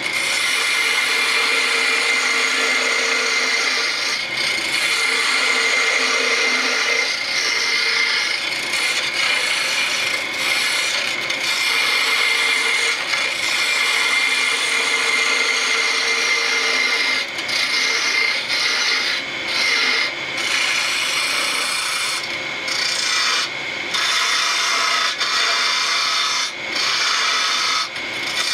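Wood lathe spinning a wooden spindle blank while a hand-held turning tool cuts into it: a steady scraping hiss of the cut, broken by several brief pauses in the second half.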